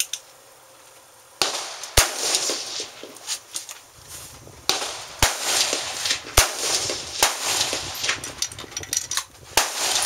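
Rifle shots on an outdoor range: several sharp cracks at uneven intervals, two of them only about a second apart, over a steady rushing background noise.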